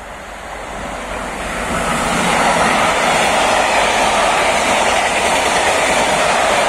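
Freight train passing at speed: a Siemens Vectron electric locomotive, then its loaded log wagons. The noise builds over the first two or three seconds as the locomotive comes through, then holds as a steady, loud rush of wheels on rail while the wagons go by.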